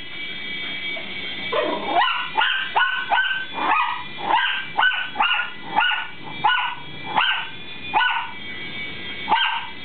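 Small dog barking excitedly at a hovering toy RC helicopter: a rapid string of short, high barks, two or three a second, starting about a second and a half in, with one more bark near the end. Under the barks runs the steady high whine of the Air Hogs helicopter's electric rotor motor.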